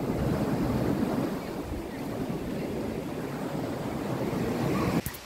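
Waves washing onto a beach, with wind rumbling on the microphone. The sound stops suddenly near the end.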